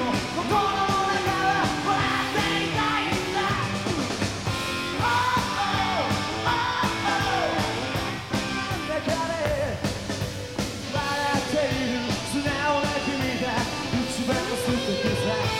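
Rock band playing live: an electric guitar lead with bending notes over drums and bass.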